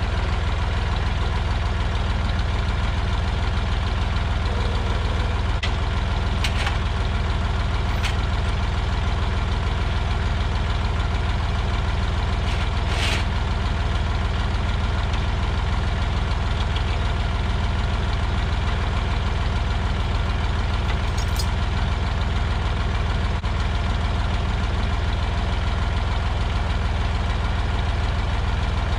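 Massey Ferguson tractor engine idling steadily, with a few short clicks over the top.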